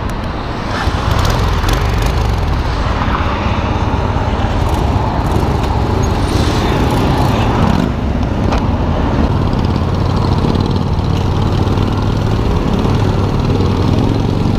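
Cruiser motorcycle engine running, getting louder about a second in as the bike pulls away and rides on.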